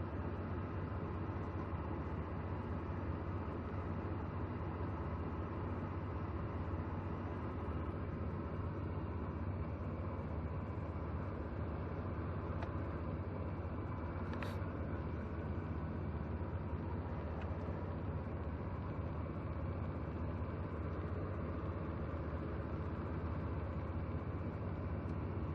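The engine of a 1994 Chevrolet S-10 Blazer idling steadily, with one short click about halfway through.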